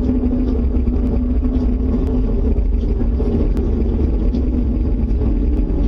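Loud, steady low rumble with a droning hum held through it: the unexplained outdoor noise that was feared to be a tornado.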